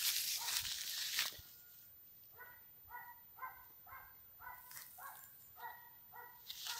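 A dog barking faintly, a steady run of about eight barks at two a second. Before the barks come a second or so of rustling, like footsteps through grass.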